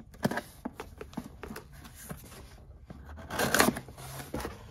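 Scissors slicing along packing tape on a cardboard box: a run of small clicks and scrapes, then a louder tearing rip about three and a half seconds in as the tape comes apart.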